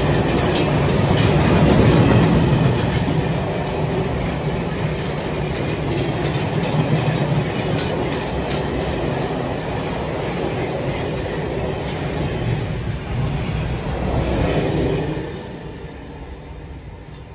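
A long freight train of covered sliding-wall wagons rolling past at speed, steel wheels clacking rhythmically over rail joints. About fifteen seconds in, the last wagon passes and the sound falls away.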